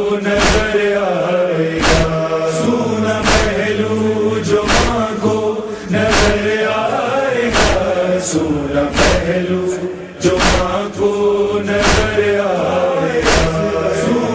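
Noha lament: voices chanting a drawn-out line with no words picked out, over a sharp beat about once every second and a half.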